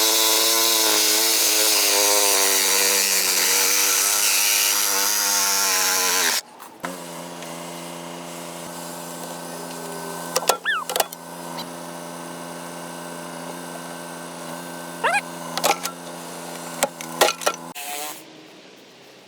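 Power tool cutting at a steady motor pitch, loud and noisy with the pitch sagging under load, then dropping abruptly about six seconds in to a quieter steady run. A few sharp clicks and short squeaks follow before the motor stops near the end.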